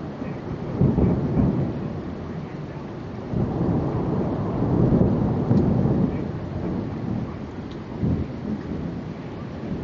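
Thunder rumbling in rolls over steady rain: a short swell about a second in, a longer, louder roll from about three and a half seconds, and a shorter one near the end.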